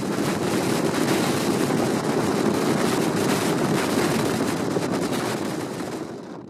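Storm wind buffeting the microphone at sea: a loud, steady rushing noise with constant crackling. It swells up after a cut and fades out near the end.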